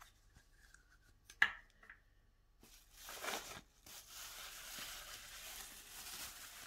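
Thin plastic bag and packaging rustling and crinkling as they are handled, with a single sharp tap about a second and a half in.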